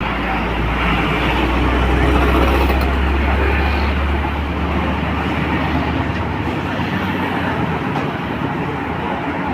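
Motorcycle running on the road, with a steady mix of engine, road and wind noise. A deep rumble in the first four seconds or so fades out.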